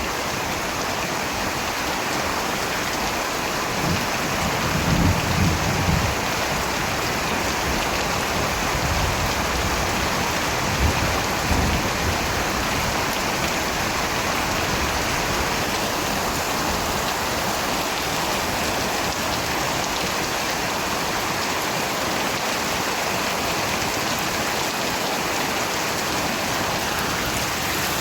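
Steady rain falling on surfaces. Low rumbles of thunder swell about four seconds in and again around eleven seconds.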